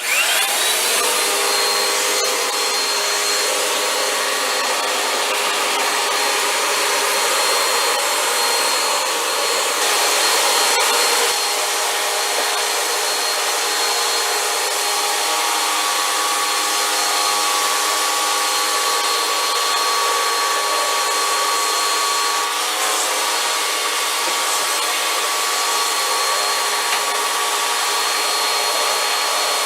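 Vacuum cleaner switching on, its motor whine rising to a steady pitch within about a second, then running steadily while the hose is worked around the floor. The sound turns briefly brighter about ten seconds in and shifts slightly a little past twenty seconds.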